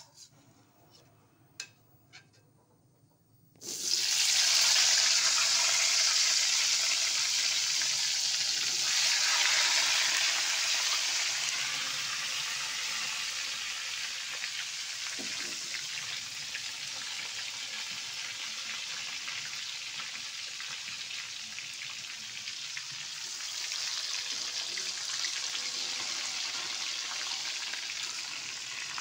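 Tempeh frying in hot oil in a wok: after a few faint clicks, a loud sizzle starts suddenly about four seconds in. It eases to a steady sizzle and swells again near the end.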